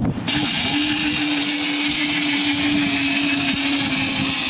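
Power Wheels New Beetle ride-on toy car's electric drive motors and gearboxes whining steadily at one pitch as it drives through snow.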